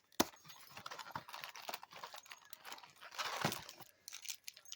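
Plastic granola-bar wrapper crinkling and crackling as it is handled and opened, a dense run of small clicks with a louder stretch a little past three seconds in.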